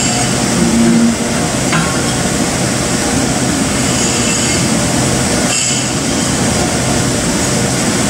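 Steady, loud mechanical background noise with a low hum, like shop machinery or a large fan running, with a light knock about two seconds in as the bearing is worked onto the shaft.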